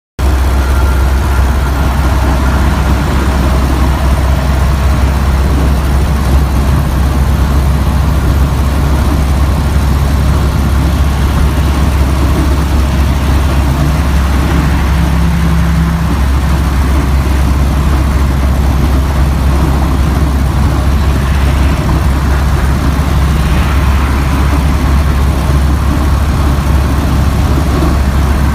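Old car's engine running steadily with a deep, even note.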